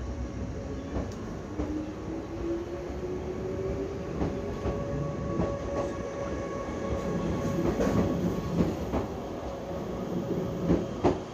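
JR 105 series electric multiple unit pulling away from the platform, its motor whine rising slowly in pitch as it gathers speed over a steady rumble. In the second half come scattered clicks and knocks of the wheels over rail joints.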